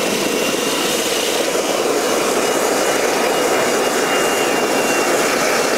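Homemade turbocharger gas-turbine jet engine running on pressurised kerosene at full throttle: a steady, loud rushing noise with a faint high whistle that fades out about three-quarters of the way through.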